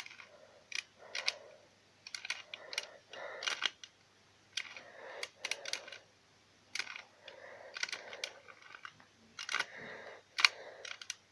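A 2x2 Rubik's cube being turned through an algorithm: short runs of plastic clicking and clatter as the faces rotate, about a dozen of them with brief pauses between.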